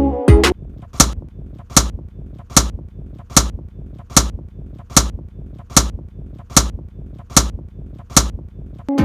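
A sharp percussive hit repeated at an even pace, about ten times, one every 0.8 seconds or so, over a low steady rumble.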